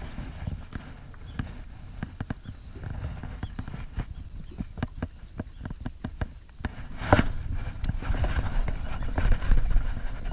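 Irregular light clicks and knocks on a plastic kayak, roughly two a second, through the first six seconds. Then water sloshing and wind on the microphone rise, with one sharper knock about seven seconds in.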